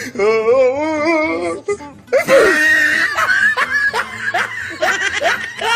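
Loud laughter with music under it: a wavering, warbling voice for the first second and a half, then a burst of laughter with short falling yelps.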